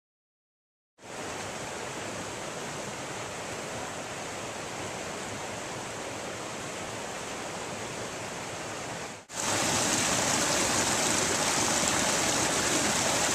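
Steady rush of flowing water, starting abruptly about a second in. About nine seconds in it cuts to a louder, hissier rush of water.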